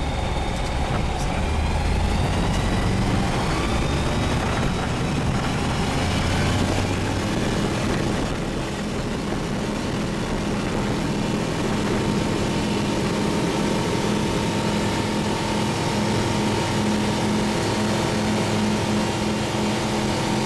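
Single-engine ultralight aircraft's engine and propeller heard from inside the cockpit at takeoff power, the pitch rising over the first several seconds and then holding steady through the takeoff roll and climb-out.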